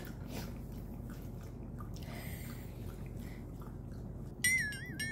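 Maltese dog eating from a bowl: soft chewing with many small clicks. About four seconds in, a loud, high wavering tone starts.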